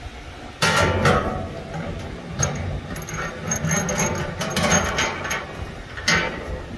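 Metal handling sounds from a chrome faucet fitting clicking and scraping against a stainless-steel sink backsplash as it is pushed through the hole and turned by hand. The sound starts suddenly about half a second in, with a string of irregular clicks after it.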